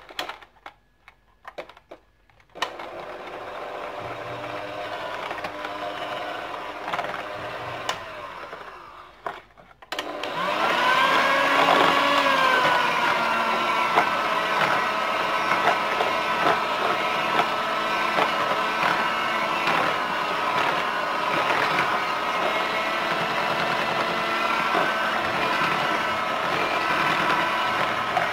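Electric hand mixer beating eggs and sugar in a bowl. It runs at a lower level from about two and a half seconds in, then about ten seconds in gets louder with a steady higher whine that dips briefly and settles.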